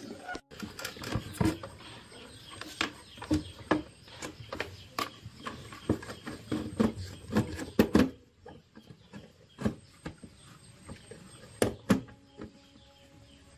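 Irregular sharp knocks and clicks, several a second for about eight seconds, then only a few more near the end.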